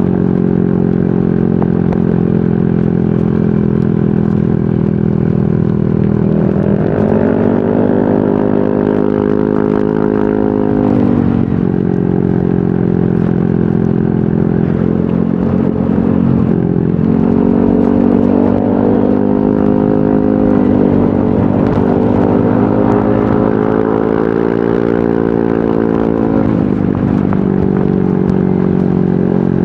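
Yamaha NMAX 155 scooter's single-cylinder four-stroke engine running through an aftermarket VMAX Onyx muffler, its exhaust note rising and falling with the throttle. The pitch climbs about six seconds in, holds, drops back near eleven seconds, then rises and falls a couple more times later on.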